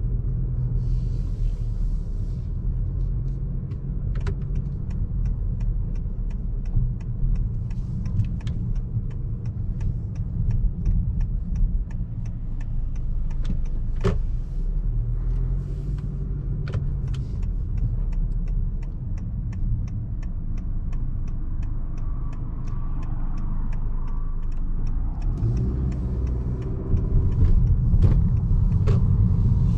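Cabin sound of a 2022 Honda Accord Sport 1.5T driving: the turbocharged four-cylinder engine and road rumble, getting louder as the car speeds up near the end. A quick, regular ticking runs through much of it.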